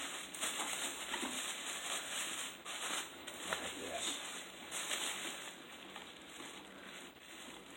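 Plastic packaging rustling and crinkling in the hands as a bag is opened, with light scattered clicks.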